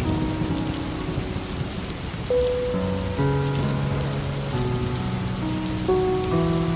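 Steady rain falling, with slow, held musical notes that change pitch every second or so.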